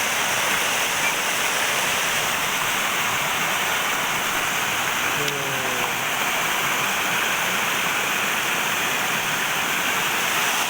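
Steady rushing of river water, an even loud hiss that does not change, with a brief faint voice about halfway through.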